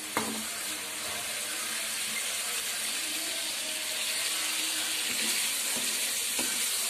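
Prawns frying in hot oil in a pan: a steady sizzle, with a brief utensil click just after the start.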